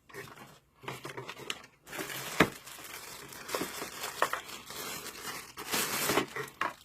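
Plastic packaging crinkling and rustling with scattered clicks as items are unpacked by hand, with one sharp click about two and a half seconds in.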